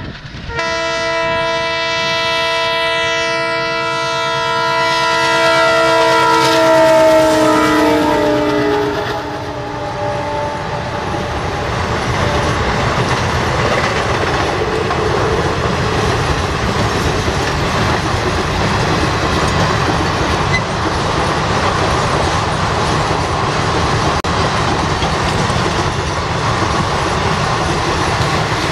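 Diesel-electric WDM-3A locomotive's multi-tone horn sounded in one long blast whose pitch drops as it goes by. After the horn stops, the express's coaches roll past with a steady rumble and clickety-clack of wheels over the rail joints.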